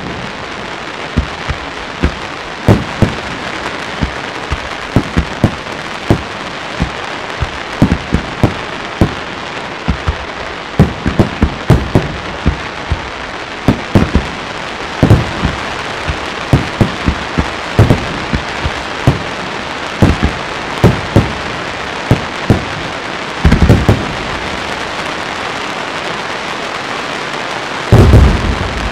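Aerial fireworks display: a dense, continuous crackling of crackling-star effects, punctuated by sharp shell bursts going off irregularly, often more than one a second. Clusters of loud bangs come about two-thirds of the way through and again near the end, with a stretch of crackling alone between them.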